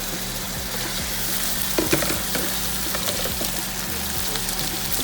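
Food sizzling steadily as it fries in hot oil in a pan, with a few short knocks of a utensil about two seconds in.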